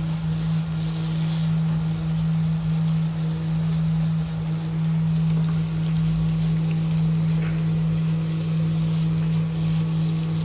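Egg mixture bubbling and sizzling in a pan as its water cooks off, over the steady low hum of an induction cooktop.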